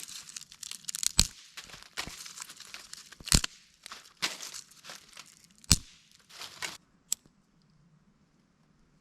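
Dry firewood being broken up by hand: a run of sharp snaps and cracks with crunching between them, stopping about seven seconds in.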